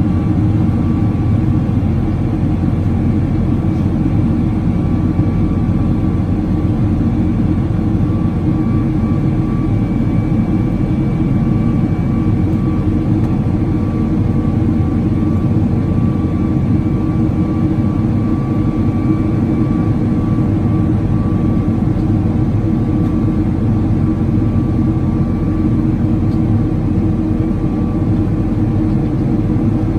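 Cabin noise of a Boeing 777-300 climbing after takeoff: the jet engines running at climb thrust make a steady low rumble with a faint high whine on top, heard from inside the cabin.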